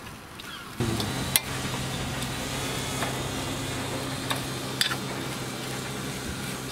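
Steady hum of a hovering quadcopter drone's motors and propellers, starting abruptly about a second in: a low drone with overtones over a noisy rush. A few sharp clicks sound on top of it, twice close together near the end.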